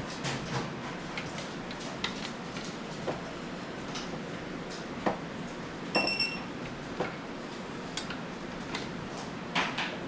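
Metal hand tools and engine parts clicking and clinking irregularly during engine assembly, with one bright ringing metallic clink about six seconds in.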